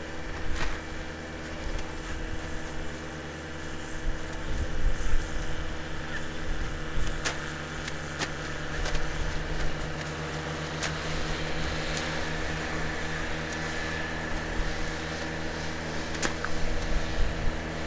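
A farm machine's engine running at a steady speed, with a gusty low rumble and scattered sharp clicks.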